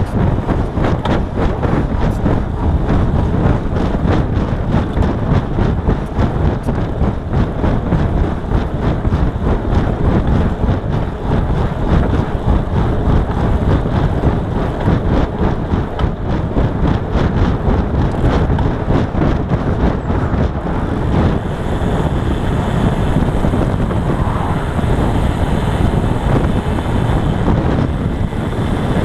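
Wind buffeting the microphone of a camera on a moving road bicycle: a loud, steady low rumble with tyre and road noise and small knocks from the bike running through it.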